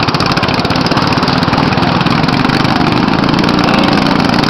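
Small engines of motorized outrigger boats (bancas) running at speed, a steady, fast-pulsing engine noise.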